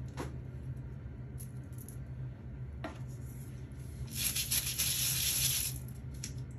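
Stiff-bristled plastic dish brush scrubbing a foam bath toy: one scratchy, rasping spell of brushing for about a second and a half past the middle, over a steady low hum, with a couple of faint clicks earlier.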